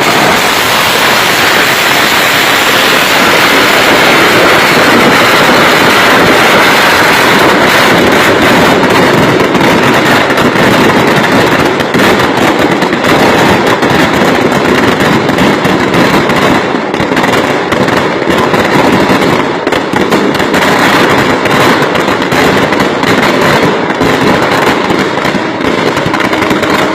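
Firecrackers going off in a loud, dense, continuous crackle of rapid pops with no break.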